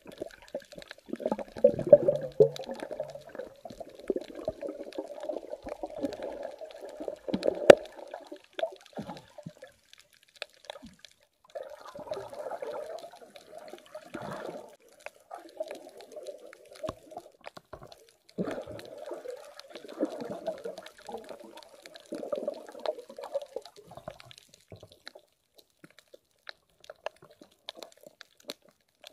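Muffled underwater water noise picked up by a submerged camera: gurgling and bubbling in stretches of several seconds, with scattered sharp clicks, fading toward the end.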